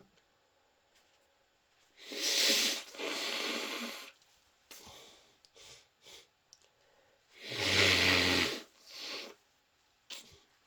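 Two sneezes from a person with a cold. The first comes about two seconds in and trails off over a second or so. The second, louder one near eight seconds has voice in it and is followed by a shorter breath.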